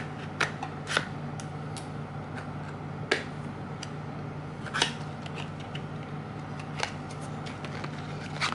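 Small cardboard box being opened by hand: scattered clicks, taps and rustles of the box flaps and a folded paper leaflet being handled, over a steady low hum.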